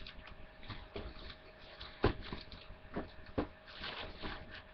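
Handling noise of firework packages being moved: several knocks and taps, the loudest about two seconds in, and a brief rustle near the end.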